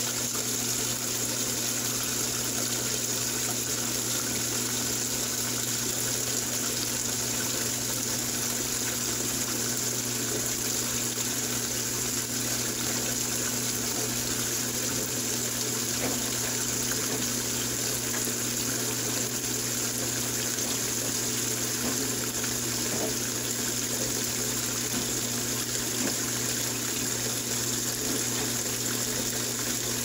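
Top-loading washing machine filling its empty tub: a steady stream of water pouring from the fill spout into the tub, with a steady low hum underneath.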